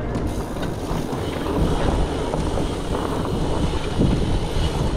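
Wind rushing over the microphone of a moving mountain bike, a steady low rumble with a few faint knocks and rattles from the bike on the trail.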